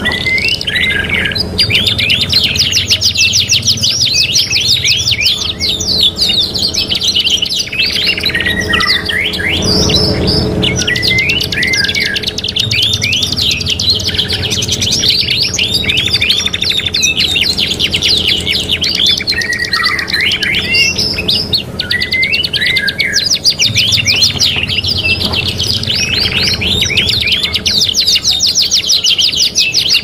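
Several songbirds singing over each other without a break: fast rolling trills, chirps and warbled phrases. It is a three-in-one tutor song mix of blackthroat, murai giblek and sikatan londo songs, played to train canaries.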